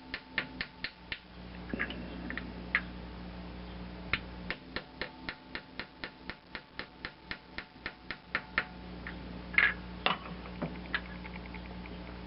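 Rapid light hammer taps on a small drift punch, driving the contactors out of a Mercury outboard kill switch. The taps come in quick runs of about four or five a second, with a couple of louder knocks near the end.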